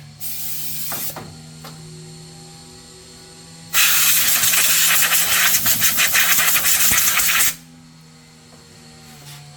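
Compressed air hissing hard from an air nozzle in two bursts: a short one at the start and a longer one of nearly four seconds from about four seconds in, fluttering as it blows. A steady low hum runs underneath.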